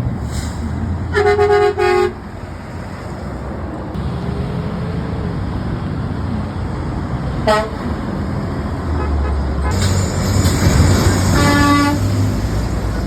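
Truck horns honking over passing road traffic: a short honk with a brief break about a second in, a very short beep around the middle, and another honk near the end as a loud vehicle passes.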